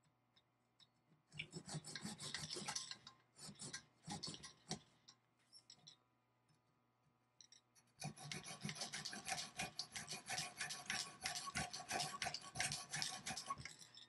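Saw teeth on the edge of a steel folding camping shovel rasping back and forth through softwood construction lumber in quick short strokes. There is one bout about a second in, a few strokes around four seconds, then a longer bout from about eight seconds that runs almost to the end. Faint ringing runs under the strokes, from the thin blade resonating as it cuts.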